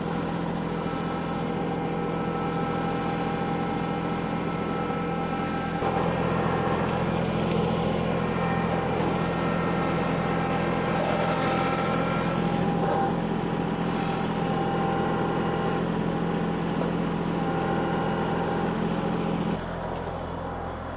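An engine running steadily, getting louder about six seconds in and dropping back shortly before the end.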